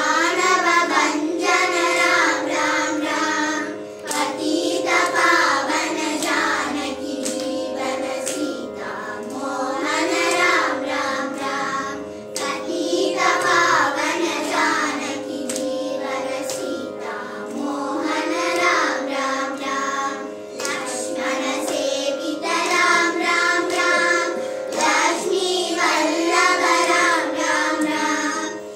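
A group of children singing a devotional song together in unison over a steady drone note.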